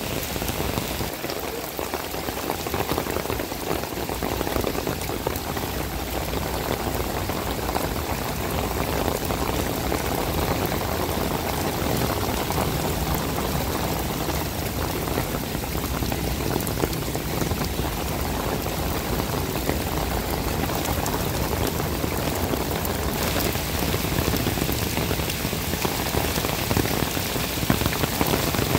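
Heavy summer downpour falling on a water-covered paved street: a steady, even rush of rain.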